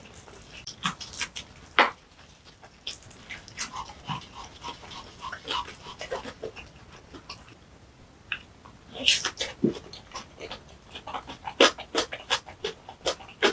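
Close-miked wet chewing and lip-smacking of a mouthful of kimchi bibimbap, with quick breaths through the mouth and soft utensil clicks. The clicks and smacks come in irregular clusters, thickest about nine seconds in and again near the end.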